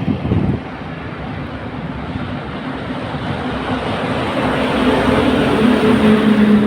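Heavy construction machine's diesel engine running under load, its drone building up and rising slightly in pitch toward the end. A brief knock sounds near the start.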